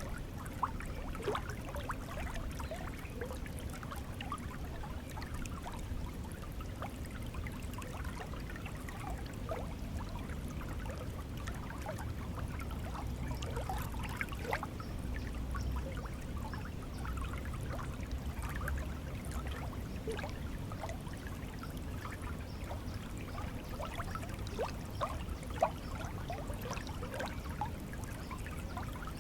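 Stream of water running and trickling steadily, with many small gurgles and splashes.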